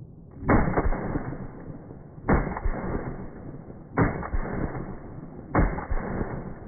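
Gunshots from a 7.62x39mm AK-47 pistol, slowed down: four drawn-out booms about a second and a half apart, each with a long fading rumble.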